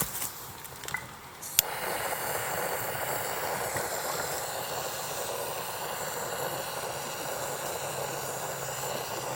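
Handheld gas torch burner: a sharp click of ignition about one and a half seconds in, then a steady hiss that stops near the end.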